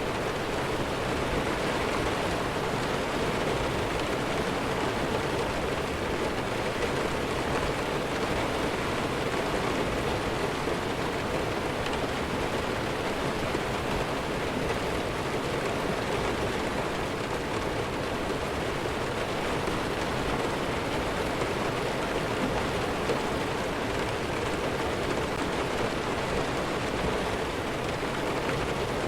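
Heavy rain falling steadily, an even hiss with no thunder heard.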